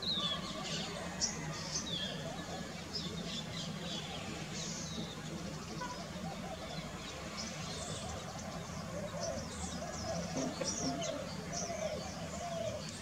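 Assorted small-bird chirps and short high calls scattered through the tree canopy, over a steady low background hum.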